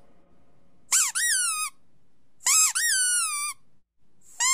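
High-pitched squeaks played back as a test sound for a dog: two squeaks, each a quick dip in pitch followed by a held, slowly falling tone, and a third beginning near the end.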